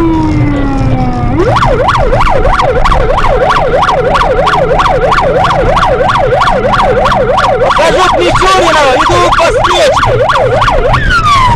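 Emergency vehicle electronic siren: a wail sinks away in pitch, then switches to a fast yelp of rising and falling sweeps, about three a second, and near the end winds down in a falling tone. A low engine rumble runs underneath.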